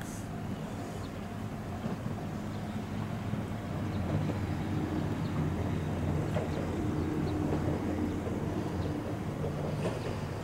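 Ohmi Railway 301-series electric train, the line's first chopper-controlled set, approaching from a distance. Its running sound is a steady low hum that grows louder about four seconds in, with a held whining tone for several seconds in the middle.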